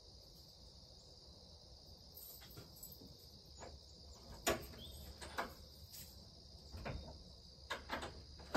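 Crickets chirring steadily in a high band. From about two seconds in there are scattered sharp knocks and clatters of objects being handled, the loudest about halfway through and at the very end.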